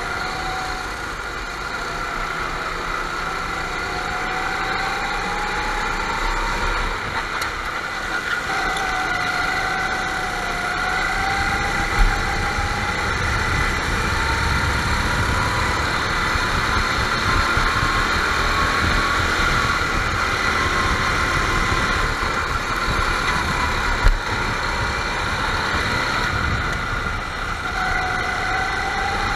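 Several go-kart engines running round a track, their whining pitch rising and falling as the karts speed up and slow down. There are two brief thumps, about 12 and 24 seconds in.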